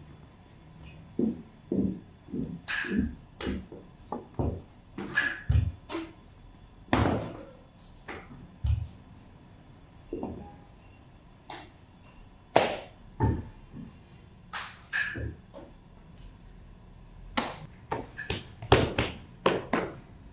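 Wooden rolling pin knocking and thudding on a floured work table as a baker rolls out scallion bread dough, in irregular knocks about one or two a second.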